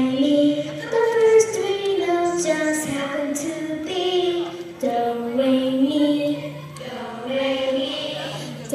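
Children's choir singing together, holding notes that step up and down in pitch one after another.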